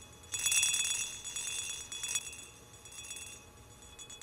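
A high, bright bell-like jingle, a musical transition sting, starting sharply about a third of a second in and swelling and fading roughly once a second.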